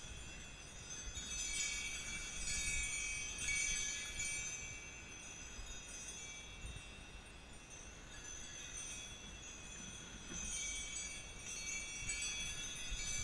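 Sleigh bells on a Shetland pony's harness and sled shafts jingling steadily as the pony pulls the sled.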